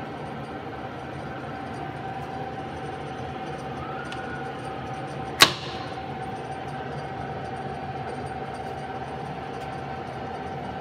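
Steady machine hum with a constant whine, from the Harrison 155 lathe running. A single sharp metallic click comes about five and a half seconds in, as the lathe's controls are handled.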